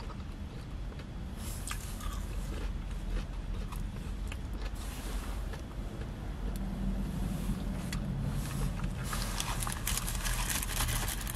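Someone eating fries in a car: small chewing clicks and food handling over the cabin's steady low rumble, with denser rustling from about nine seconds in.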